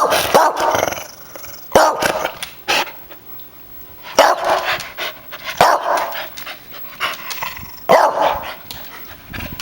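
A dog barking repeatedly: a run of loud barks spaced about one to two seconds apart, with short pauses between them.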